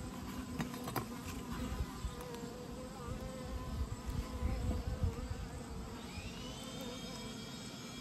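Honeybees buzzing around an open hive in a steady hum, with a couple of light knocks from the hive frames being handled about half a second and a second in. A higher, steady whine joins about six seconds in.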